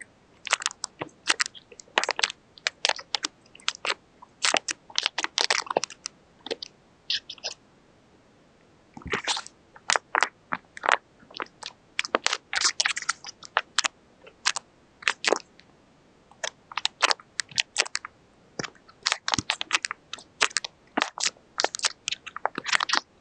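A paper squishy being squeezed and pressed: repeated bursts of crinkling, crunching paper, with short pauses between squeezes.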